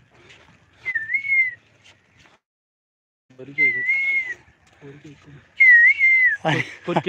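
A person whistling a short wavering phrase three times, each a dip and rise of about half a second to a second, with brief voices between them and a loud short shout near the end.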